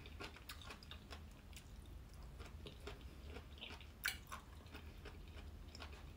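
Faint chewing of crunchy bamboo shoots, a scatter of short crisp crackles as they break between the teeth, with one sharper click about four seconds in.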